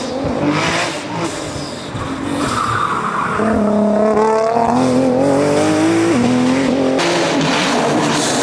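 Nissan R35 GT-R's twin-turbo V6 revving hard through a corner, its tyres squealing as the car slides. The revs climb and then drop at an upshift about six seconds in.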